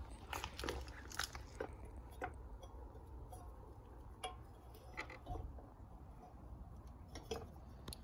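Faint crunching footsteps on gravel and dry leaves in the first couple of seconds. Then a few scattered light clicks and taps of hands working the motorcycle's rear brake disc into the caliper.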